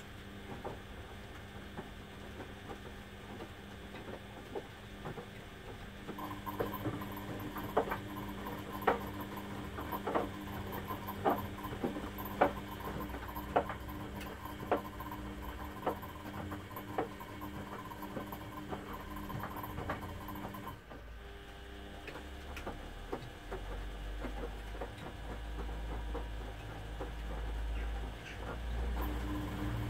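Two Beko front-loading washing machines running delicate wash cycles, drums turning wet laundry with a motor hum and light knocks about once a second. Near the middle one drum motor stops, and a low rumble carries on to the end.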